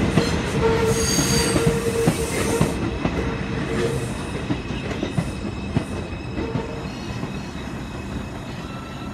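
An R142 subway train braking into the station: a rumble of wheels on rail with squealing tones, loudest in the first few seconds, dying away as the train slows to a stop.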